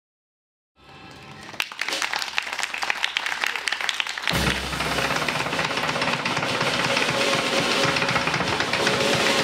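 Fast tap-dance steps on a small tap board, rapid sharp clicks. About four seconds in, a drum kit joins and the sound becomes fuller and louder with a heavy bass.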